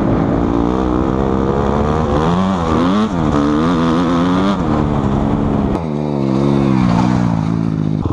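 Dirt bike engine under hard throttle, its pitch rising and falling repeatedly as it is ridden, with a sudden drop about six seconds in.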